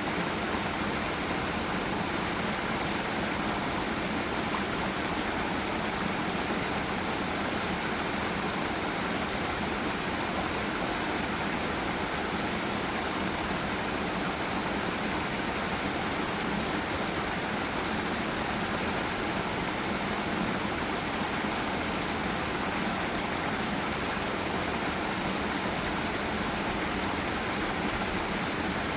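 Forest stream and small waterfall: water rushing and splashing over rocks in a steady, even hiss without a break.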